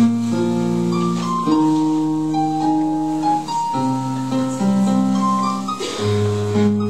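Keyboard playing slow, sustained chords that change every second or so.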